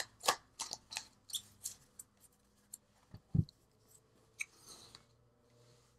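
Tarot cards being shuffled by hand: a run of quick card snaps that thin out over the first two seconds. A soft thump follows about three seconds in as the deck is set down on the cloth-covered table, then a light click and a brief rustle.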